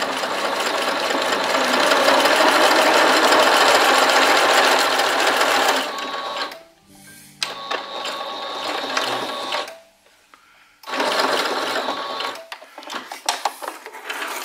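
Singer sewing machine with a horizontal bobbin stitching through canvas in three runs, a long one of about six seconds and then two shorter ones, with a few light clicks near the end. It is sewing a test seam after its hook timing was reset, and the hook is now catching the bobbin thread: the machine is back in time.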